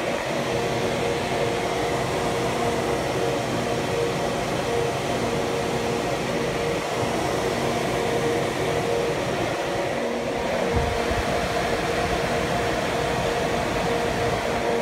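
Cooling fans of a DIY hydroponic grow box running loud and steady: an even rush of air with a steady multi-tone fan hum.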